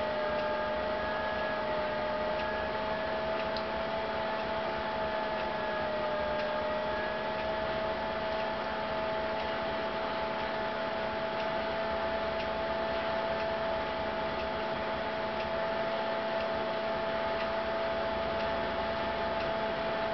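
Steady electrical hum and hiss: a held whine that wavers slightly in pitch, with a second steady tone above it, over an even hiss.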